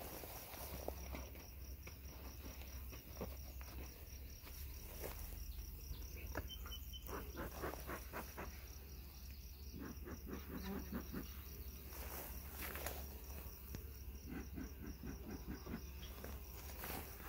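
A cricket chirping steadily in even, high-pitched pulses, with scattered light rustles and clicks.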